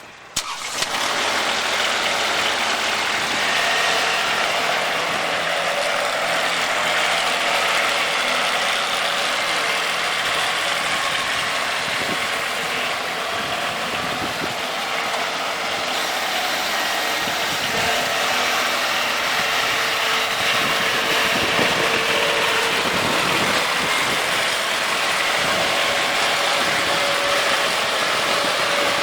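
Machinery running steadily, a loud even mechanical whirring that starts abruptly about half a second in.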